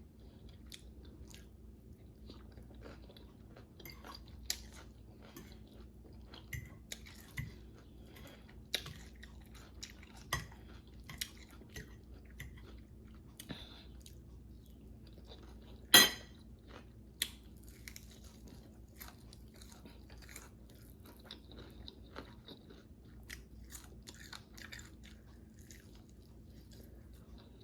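A person chewing and biting into crispy, hard-fried chicken wings close to the microphone: soft, irregular crunches and crackles, with one loud crunch about halfway through.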